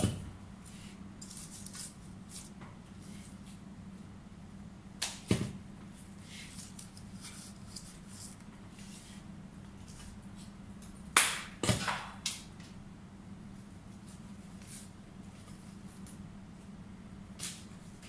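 Leaves and stems being handled and worked into floral foam: a few sharp snaps and clicks with light leaf rustling, loudest in a cluster of about four snaps between eleven and twelve seconds in, over a steady low hum in the room.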